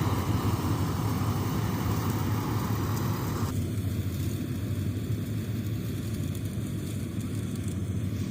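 Malkit 997 combine harvester running steadily while cutting paddy, with a deep engine drone; the higher part of the sound drops away suddenly about three and a half seconds in.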